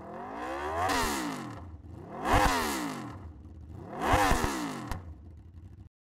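Aprilia RSV4 1100's V4 engine through an SC-Project GP-22 titanium exhaust, revved three times: each blip of the throttle rises and falls in pitch, the second and third with a low thud at their peak.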